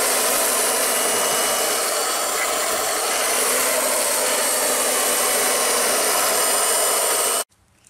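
Octa RC100 handheld round-knife cloth cutter, its 250 W brushed electric motor running steadily while cutting through about ten layers of denim. The sound cuts off abruptly near the end.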